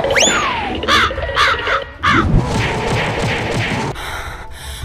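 Cartoon sound effects: a falling whistle, then four short caw-like squawks in quick succession, over a busy soundtrack.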